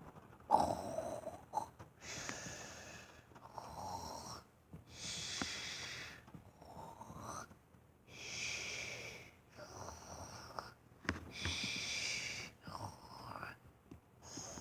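Snoring with a high whistling wheeze, low rasping breaths alternating with whistling ones, a full breath about every three seconds.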